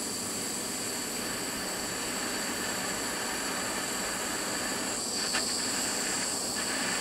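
Small handheld gas torch burning steadily, its flame held on two stainless steel handles in a vise to bring them up to soldering heat. A faint brief click about five seconds in.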